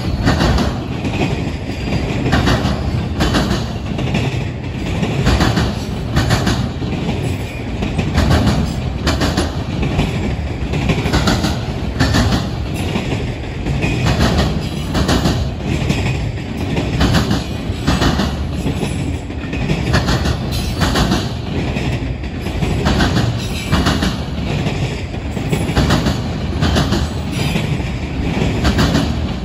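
Freight train of autorack cars rolling past: a steady rumble of steel wheels on rail, with a repeating clickety-clack as the wheelsets cross rail joints.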